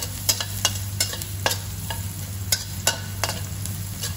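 Chopped garlic sizzling as it browns in very hot oil in a stainless-steel wok, stirred with a metal spoon that clinks and scrapes against the pan about two to three times a second. A steady low hum runs underneath.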